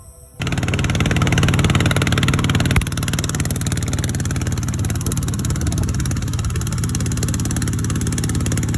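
A small engine running loud and steady with a fast even firing beat. It cuts in abruptly about half a second in and eases slightly a few seconds later.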